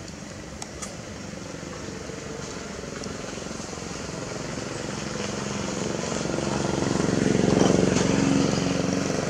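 A motor vehicle's engine passing by: its note grows louder over several seconds, is loudest about three-quarters of the way through, then begins to fade. A couple of faint clicks come near the start.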